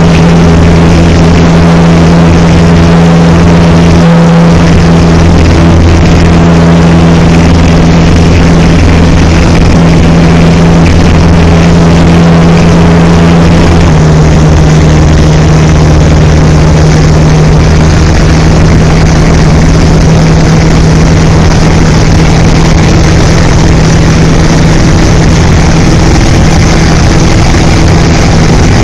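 Light aircraft's piston engine and propeller running at a steady loud drone in flight. The note drops slightly in pitch about halfway through.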